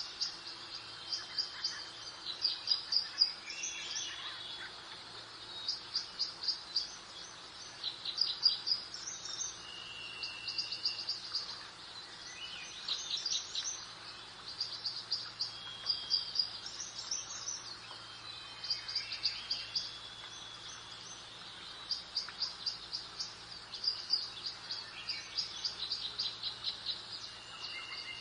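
Songbirds singing: repeated short phrases of rapid high chirps every second or two, with a few longer whistled notes, over a steady soft background hiss.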